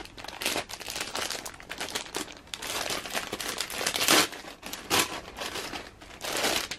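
Clear plastic poly bag crinkling and rustling as hands handle it and work it open, with louder crackles about four and five seconds in.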